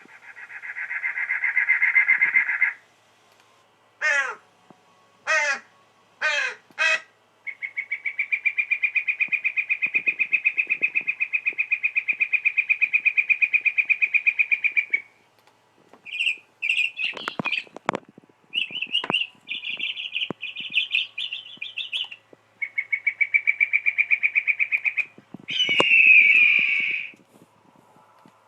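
A string of recorded bird calls played back as sound effects: a buzzy call, four quick falling whistles, a long rapid rattling call, scattered chirps, and a harsh caw near the end, the loudest of them.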